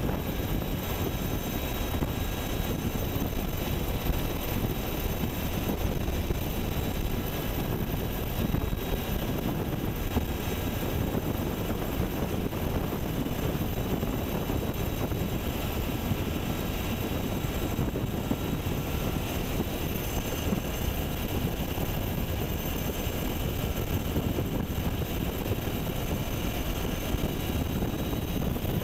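UH-60 Black Hawk helicopter in flight, heard from inside the cabin: a steady, unbroken rotor and twin-turbine rumble with faint steady whines above it.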